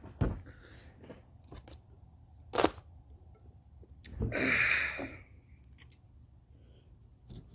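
Kitchen handling sounds while preparing pico de gallo: a few sharp knocks and, about four seconds in, a longer breathy hiss lasting under a second.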